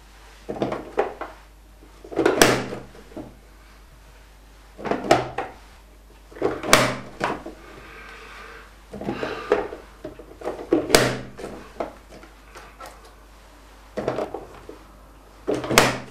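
Nicer Dicer plastic vegetable chopper with its slicing insert, its lid pressed down again and again to slice mushrooms. Each press gives a sharp plastic clack every two seconds or so, with smaller clicks in between as the pieces are set on the blade.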